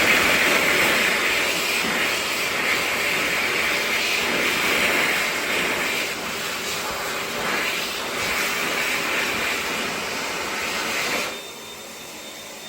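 Heatstore Tornado hand dryer running with a steady, loud, high rushing blow that cuts off sharply about eleven seconds in, leaving a faint high whine as the motor runs down.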